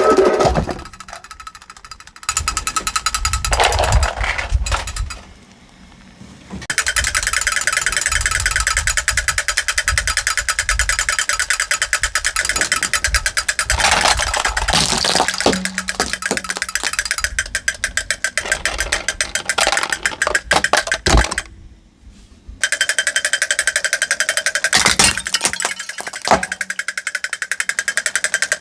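Plastic toys crunching and crackling as a car crushes them: a dense, rapid clatter of snapping plastic in long stretches, broken by two brief pauses.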